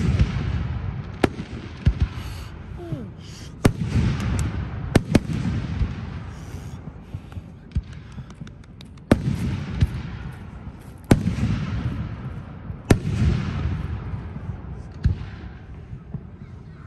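Aerial firework shells bursting one after another, about nine sharp bangs at uneven intervals. Each bang trails off in a long rolling rumble.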